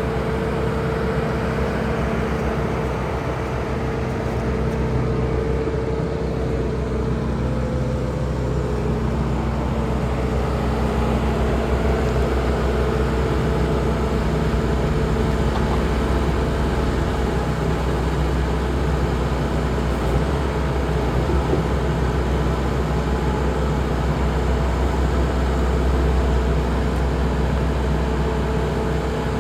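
Bobcat T870 skid steer's diesel engine running steadily, with a steady hum over a low rumble, getting a little louder about ten seconds in.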